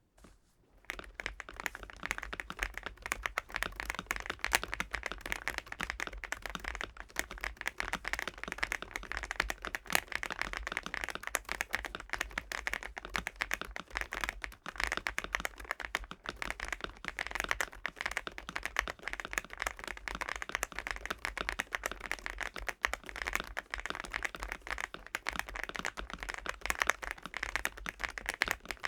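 Fast, continuous typing on a MCHOSE UT98 gasket-mounted mechanical keyboard with PBT keycaps: a dense stream of key clacks that starts about a second in.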